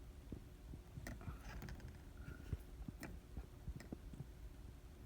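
Faint handling noise with a few light, sharp clicks, about one, three and four seconds in, as small parts are handled.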